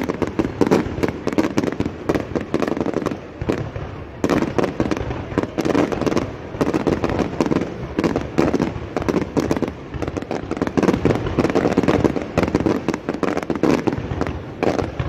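Aerial fireworks bursting and crackling in a dense, nearly continuous stream of sharp pops and bangs, with louder clusters every couple of seconds.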